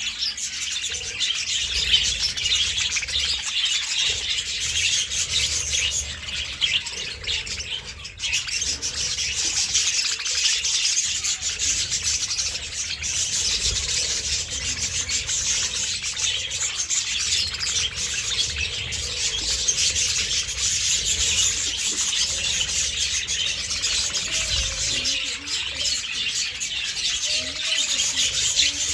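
A flock of budgerigars chattering and chirping continuously in a dense, overlapping chorus, with a brief lull about eight seconds in.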